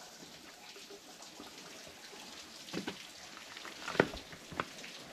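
Meltwater dripping from a thawing frozen waterfall, a few separate drops splashing onto rock and ice just under three seconds in and around four seconds in, the loudest near four seconds, over a faint steady hiss of trickling water.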